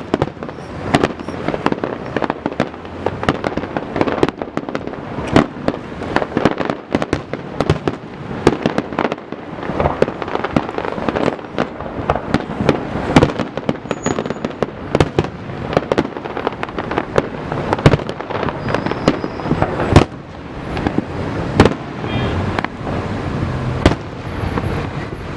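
Aerial fireworks display: a rapid, continuous barrage of overlapping bangs and crackles, with occasional louder single booms standing out.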